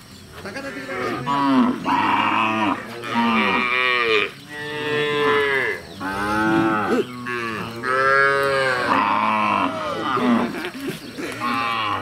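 A herd of Bargur calves and cows mooing, loud calls one after another that often overlap, each bending up and down in pitch.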